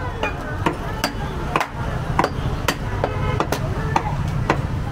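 Steel meat cleaver chopping goat offal on a wooden log chopping block, with sharp chops about two a second.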